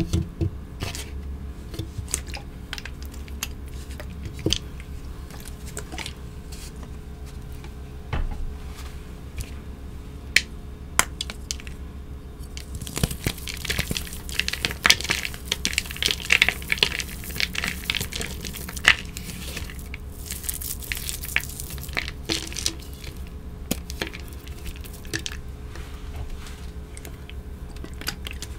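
Hands squeezing and crushing blocks of wet, red-dyed gym chalk, giving scattered crackles and snaps. About halfway through comes a long run of dense, crunchy crumbling as a block breaks apart in the fingers.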